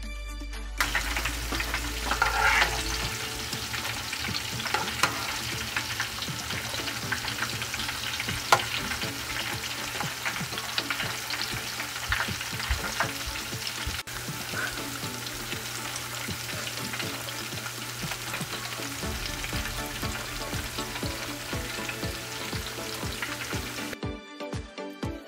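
Chicken pakoras deep-frying in hot oil: a steady sizzle full of small crackles, with a few louder pops. Background music plays briefly at the start and comes back near the end.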